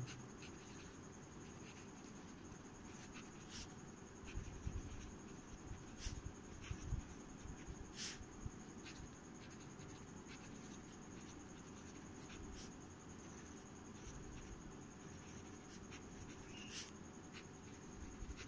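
Parker Beta fountain pen's fine nib scratching faintly across paper as a line of cursive is written, in short strokes with small pauses and light ticks as the nib lifts and lands.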